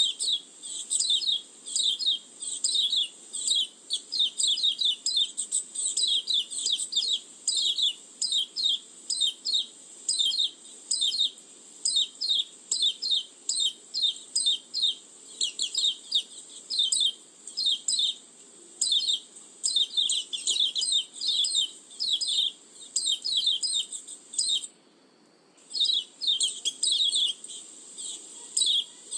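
Pleci (white-eye) lure call: a fast, continuous chatter of high, sharp downward-sweeping chirps, several a second, used to draw in wild white-eyes. It breaks off for about a second near the end, then resumes.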